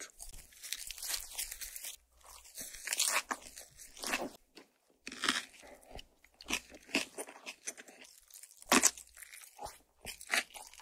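Close-miked chewing and crunching of food: a lettuce wrap with air-fried makchang, then mouthfuls of spicy stir-fried noodles. The crunches come irregularly, one louder than the rest about nine seconds in.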